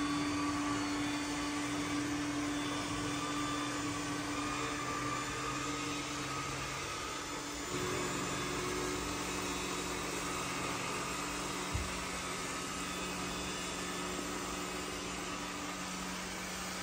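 Robot vacuum cleaner running steadily with a motor hum. Its pitch shifts about eight seconds in, and there is a single brief knock near twelve seconds.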